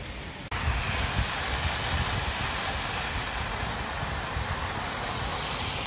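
Waterfall rushing: a steady hiss of falling water that starts abruptly about half a second in, over a low, uneven rumble of wind on the microphone.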